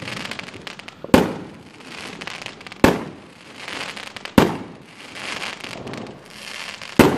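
Consumer aerial fireworks bursting overhead: four sharp bangs with crackling between them.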